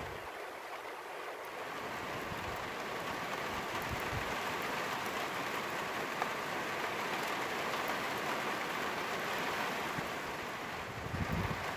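Steady rain falling on a wet flat roof, an even hiss. A gust of wind buffets the microphone near the end.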